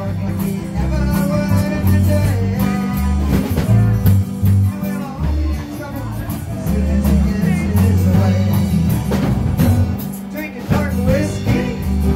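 Live band playing: a woman singing lead over strummed acoustic guitars and a bass line.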